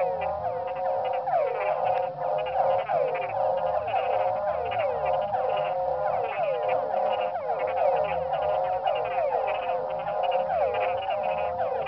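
Dense chorus of frogs and toads calling: many overlapping short calls that drop in pitch, running without a break, with a lower pulsing drone beneath.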